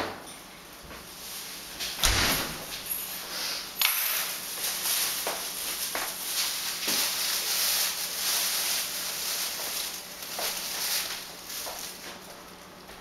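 A few sharp knocks and thumps, then plastic grocery bags rustling and crinkling for several seconds, with scattered clicks, fading toward the end.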